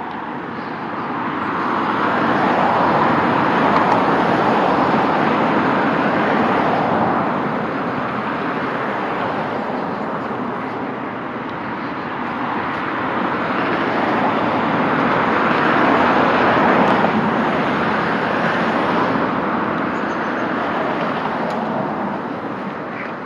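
Road traffic: the tyre and engine noise of passing cars swells and fades twice, loudest about three to four seconds in and again around sixteen to seventeen seconds in.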